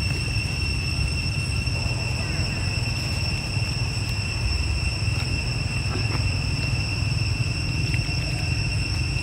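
A steady high-pitched insect drone, one unchanging tone with overtones, over a constant low rumble, with a few faint brief sounds from the monkeys.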